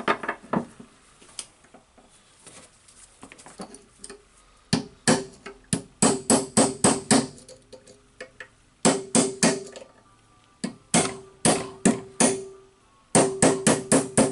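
Hammer driving a punch against the steel spring ring of a rotary hammer's tool holder clamped in a vise: a few light taps, then about five seconds in, runs of quick sharp blows, about three a second, each with a short metallic ring. The ring is stuck and only turns a little under the blows.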